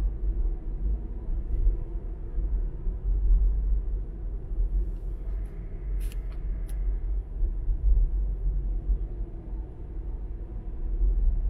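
Car driving along a street: a steady low rumble of engine and tyres on the road. A couple of sharp clicks come about six seconds in.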